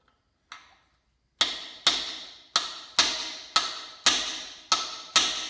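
A hammer strikes a 24 mm socket to drive a brass expansion (freeze) plug into an Oldsmobile 350 V8 engine block. There is one light tap, then eight sharp strikes, about two a second, each ringing briefly.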